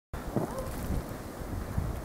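Blizzard wind buffeting the microphone: an uneven, gusting low rumble of wind noise.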